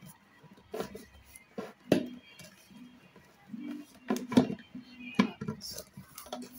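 Irregular hard knocks and clicks of a stand fan's pipe pole being twisted and rocked in its plastic base, hunting for the small catch that locks it in; the loudest knocks come about four seconds in.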